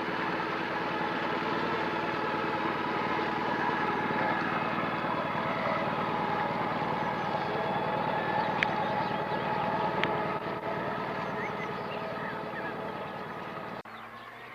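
A motor running steadily, a dense hum of several held tones with a fast fine rhythm under it and two sharp clicks. The sound cuts off suddenly shortly before the end.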